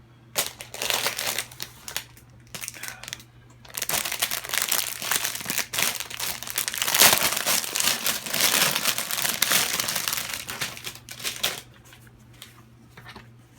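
Packaging crinkling and rustling as the gloves are unwrapped by hand: short bursts at first, then a long spell of continuous crinkling from about four seconds in that dies down near the end.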